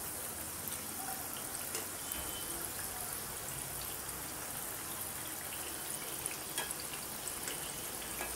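Hot oil sizzling steadily with small scattered crackles as bedmi pooris deep-fry in a kadhai.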